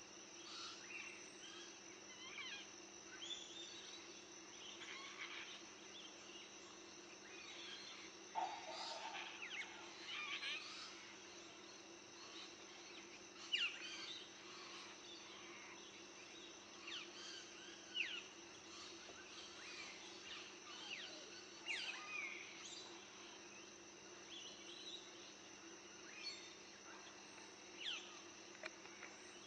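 Birds making short, sharply falling chirps, scattered irregularly throughout. Underneath runs a steady low hum and a steady high insect-like drone.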